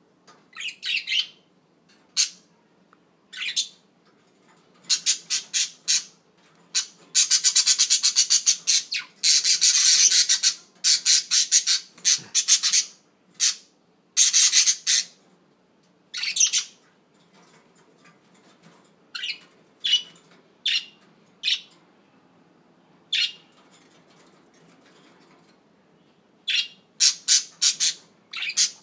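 Pet budgerigars chirping and squawking in short, high-pitched bursts, with a run of fast, dense chatter in the middle.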